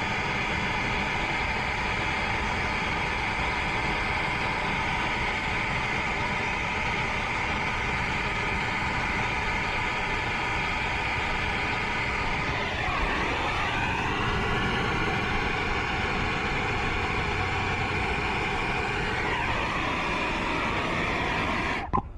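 Brazing torch flame burning steadily while a reversing valve's copper joints are brazed. It stops abruptly near the end.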